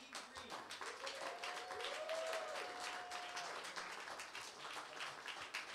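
Congregation clapping, a dense patter of many hands. A rising-and-falling call carries over it for a couple of seconds from about a second in.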